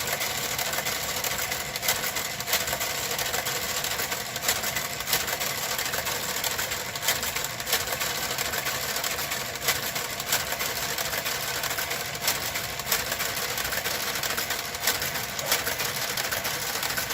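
Knitting machine's motorized garter carriage working across the needle bed, a steady mechanical running sound dotted with frequent sharp clicks.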